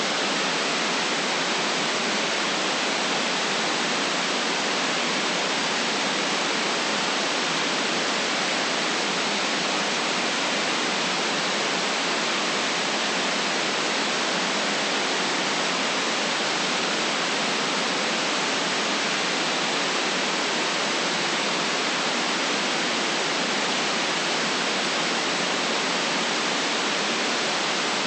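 Steady, unchanging electronic white noise: an even hiss with sharp edges that cut off the deep bass and the highest treble.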